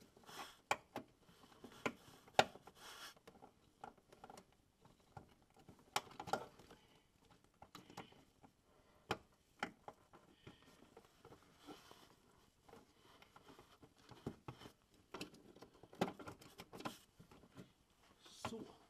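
Plastic electrical connectors and wiring in a car's engine bay being handled and pushed into place by hand: quiet, irregular small clicks and rustles.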